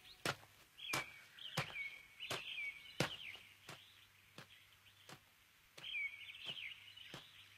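Faint woodland ambience of small birds chirping in quick trills, with short, sharp steps sounding evenly about every 0.7 s, like someone walking slowly.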